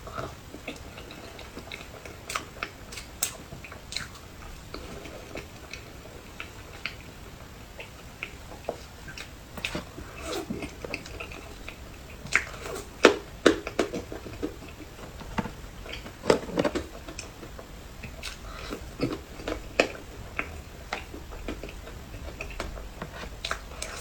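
Close-up chewing and wet mouth sounds of someone eating a small jelly: irregular squishes, smacks and clicks, more frequent and louder in the middle.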